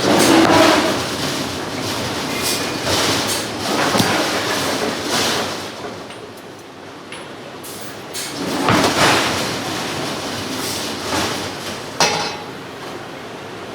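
Hydraulic forging hammer working hot steel: surges of heavy rushing, clattering noise, with sharp knocks about four seconds in and again near the end.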